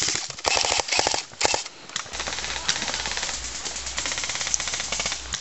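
Airsoft electric rifles firing on full auto: a few short rattling bursts in the first second and a half, then one long continuous burst.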